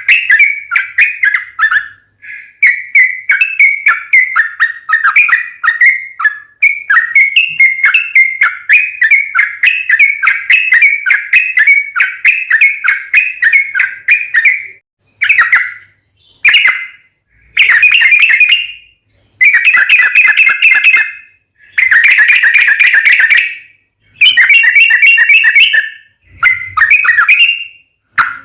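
Yellow-vented bulbul (trucukan) song played as a lure: a long, fast run of quick chattering notes, then from about halfway a series of separate bursts of dense, excited chatter, each a second or two long with short pauses between.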